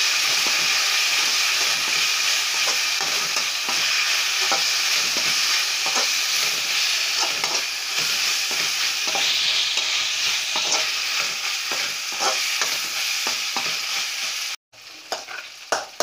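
Vegetables in sauce sizzling as they stir-fry in a metal kadai, stirred with a perforated metal skimmer that scrapes and clicks against the pan. Near the end the sizzle cuts off abruptly and comes back much quieter, with a few separate scrapes and taps.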